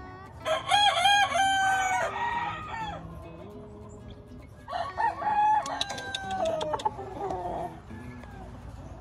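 Rooster crowing twice: two long cock-a-doodle-doo calls about four seconds apart, each holding its pitch and then dropping away at the end.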